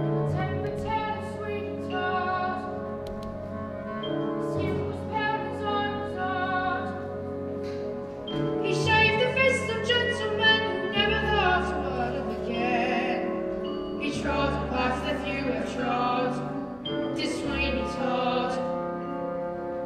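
Musical-theatre music: pitched instrumental accompaniment, with an operatic voice singing with vibrato from about eight seconds in.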